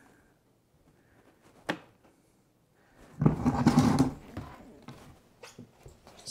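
A trowel scraping and scooping grout out of a plastic bucket: a single sharp click about a second and a half in, then a scrape lasting about a second past the middle, followed by a few light taps.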